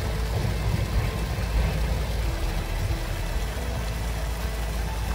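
Wind buffeting the microphone: a steady, fluttering low rumble with an even hiss over it.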